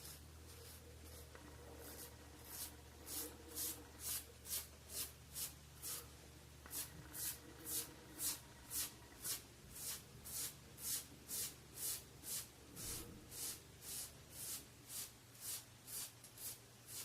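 Rockwell 6C safety razor with a SuperMax Blue Diamond blade scraping through a week's stubble on a scalp lathered with hair conditioner, in short quick strokes about two a second that come thicker a couple of seconds in.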